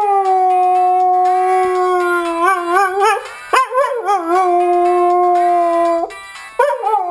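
Dog howling at a phone alarm: long drawn-out howls that slide down in pitch and then hold steady, wavering in places. One howl breaks off about halfway through and a new one starts, and another begins near the end.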